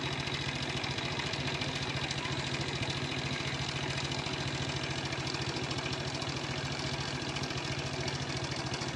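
An engine running steadily at idle with a fast, even beat and no change in speed.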